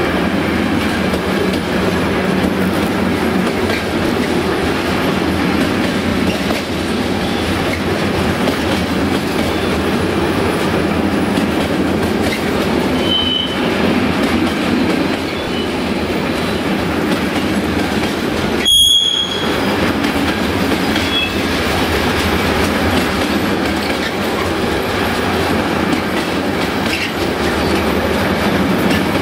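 Freight train of covered hopper wagons rolling past close by: a steady heavy rumble of wheels on rail. Short high-pitched squeals come about halfway through and again about two-thirds of the way through.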